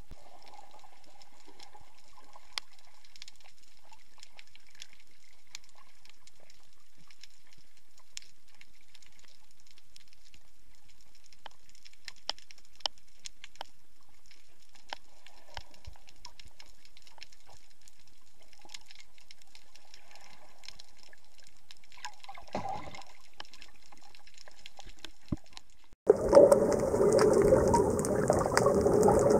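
Underwater ambience from a camera below the surface: a faint steady hiss with scattered sharp clicks and crackles, and a brief gurgling swell about 22 seconds in. Near the end it cuts abruptly to a much louder rushing, churning water noise.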